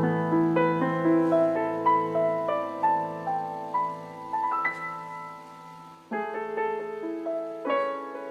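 Background piano music: a slow melody of single notes over held low bass notes, with a new, louder chord about six seconds in.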